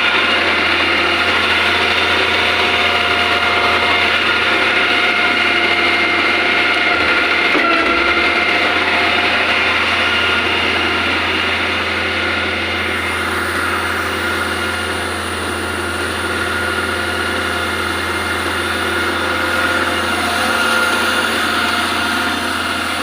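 Concrete pump truck's engine running steadily, a constant low hum with steady overtones.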